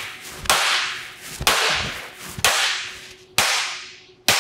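Hammer blows on a welded steel T-joint clamped to a steel welding table: five hard strikes about a second apart, each ringing and dying away. This is a fillet weld break test, and the blows bend the upright plate over flat.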